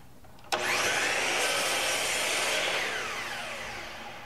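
Compound miter saw switched on about half a second in, its motor whining up to speed and running steadily as it cuts a length off a round Tzalam wood blank. Near the end the trigger is released and the motor winds down with a falling whine.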